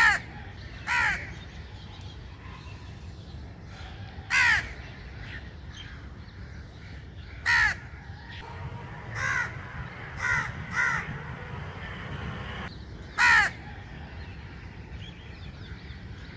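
A crow cawing: about eight short, harsh caws at uneven intervals, with a few quieter ones in a quick cluster partway through. A steady low background rumble runs underneath.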